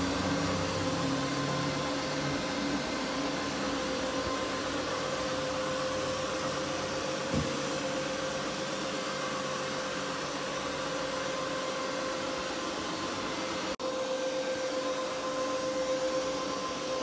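Carpet-cleaning extraction machine running steadily: the continuous whir of its vacuum suction and powered cleaning head, with a steady hum, as the head is worked over the carpet. A soft thump comes near the middle, and the sound drops out for an instant about three-quarters through.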